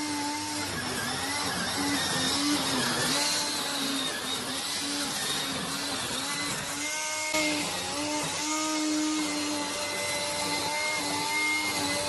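Motor and spinning cutter disc of a home-built remote-control weed trimmer cutting through weeds: a steady whine whose pitch wavers up and down, over a rough rushing noise.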